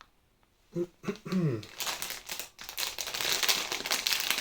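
Plastic packaging crinkling and rustling as it is handled, starting about two seconds in.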